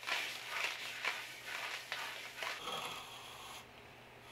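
Sponge float scrubbing over a fresh stucco finish coat in quick strokes, a rough swishing about twice a second, blending the patch into the existing sand texture. The strokes die away a little under three seconds in.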